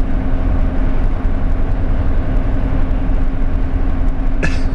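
Van's engine running, a steady low rumble with a constant hum, heard from inside the cab. A brief high chirp sounds near the end.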